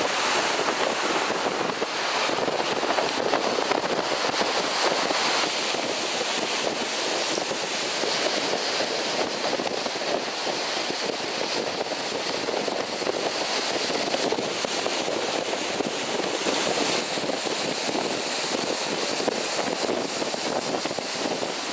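Rough sea surf breaking and washing against a concrete tetrapod breakwater: a continuous, steady rush of noise without pauses.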